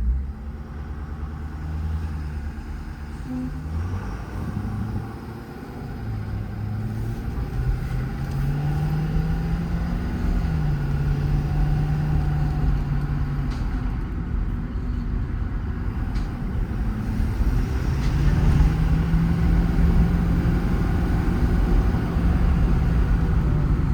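A 2018 Ford F-550's 6.7 Power Stroke V8 turbo-diesel pulling the truck along the road. The engine note climbs, drops back about ten seconds in as it shifts up, then climbs again, growing louder toward the end.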